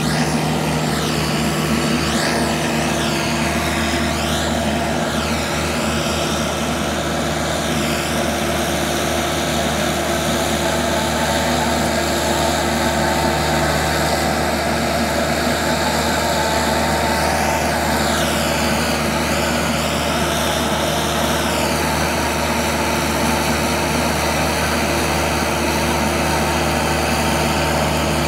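Vermeer S925TX mini skid steer's engine running steadily under load as its hydraulic auger bores a fence-post hole. A higher whine over the engine dips and rises in pitch twice.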